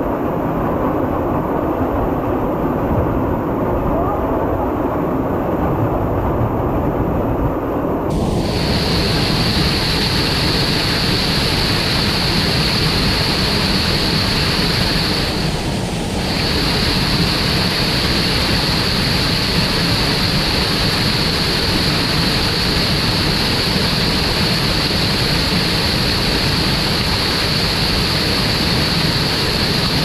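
Waterfall of a stream swollen after a typhoon, pouring into its plunge pool and onto a person standing beneath it: a loud, steady rush of water. About eight seconds in the sound turns brighter and hissier.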